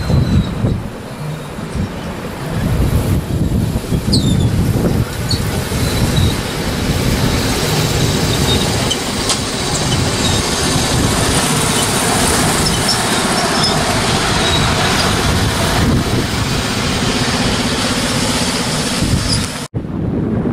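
Ride-on miniature railway locomotive hauling passenger cars past, running steadily as it rolls along the track. The sound cuts off abruptly near the end.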